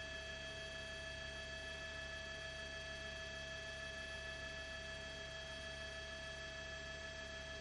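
Steady electronic whine made of a few fixed pitches over a faint hiss, unchanging throughout, like signal interference on an aerial video feed.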